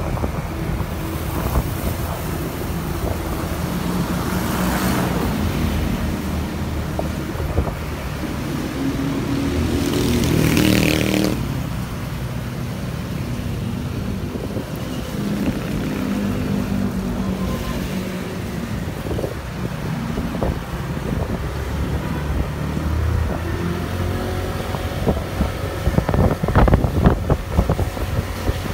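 Engine of a moving road vehicle running, its pitch rising and falling as it speeds up and slows, with wind buffeting the microphone. A loud rushing swell peaks about ten seconds in, and a run of knocks and rattles comes near the end.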